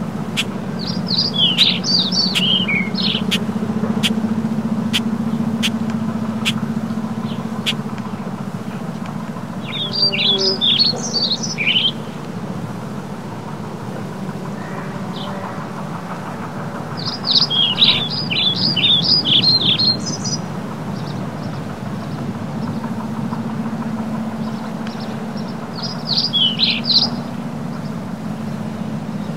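A songbird singing four short, quick warbling phrases several seconds apart, over the steady distant drone of a JCB Fastrac tractor's diesel engine pulling a hay rake.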